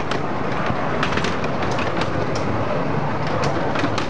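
Open passenger carriages of a 10.25-inch-gauge miniature railway rolling past close by, their wheels rumbling and clicking steadily over the rail joints.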